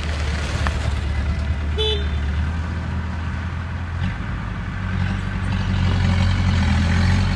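Diesel engine of heavy earthmoving machinery running steadily under work, its note shifting about four seconds in and growing louder near the end. A brief high-pitched beep sounds about two seconds in.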